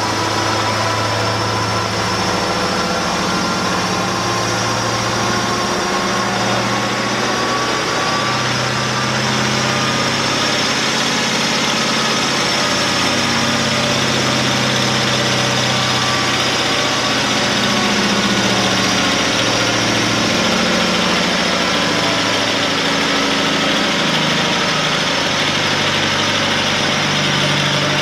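1983 Caterpillar 3408 direct-injected mechanical V8 diesel, fitted with performance injectors, pump and turbo, running a pull on a chassis dyno under climbing load, with a steady high whine over the engine note and the pitch creeping up in the first ten seconds or so.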